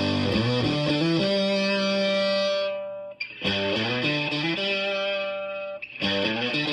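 Burny Les Paul Jr. copy electric guitar with a P90 pickup, played through a DIY fuzz pedal with both switches up into a 1980s Fender Super Champ amp. It plays distorted fuzz riffs, with a held note ringing out and decaying, and the playing stops briefly twice.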